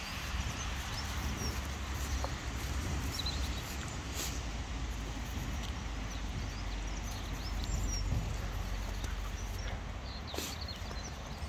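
Cocker spaniel moving about and sniffing in snow, making faint sounds over a steady low rumble.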